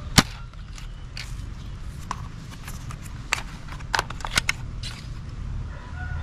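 Toy foam-dart sniper blaster being primed and fired: a series of sharp plastic clicks and snaps at irregular intervals, the loudest just after the start.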